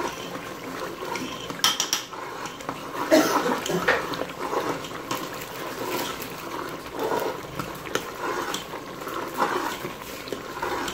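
A metal spoon stirring chicken curry in an aluminium pressure cooker, scraping and clinking irregularly against the pot's side and bottom, with a couple of sharper clanks about two and three seconds in.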